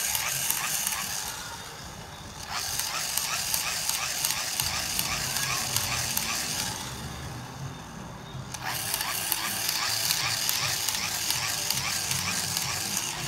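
A small electric bubble machine running: a steady whirring hiss with a light rattle, which dips twice, briefly about a second and a half in and for nearly two seconds about seven seconds in.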